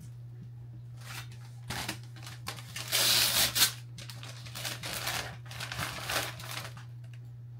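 Brown paper shipping mailer being torn open and crumpled by hand, in several irregular rustling bursts, the loudest about three seconds in.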